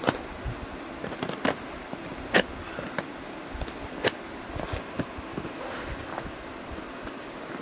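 A cardboard shipping box and its packing paper being opened and handled: scattered crinkling and rustling with a few sharp snaps, the loudest about two and a half seconds in.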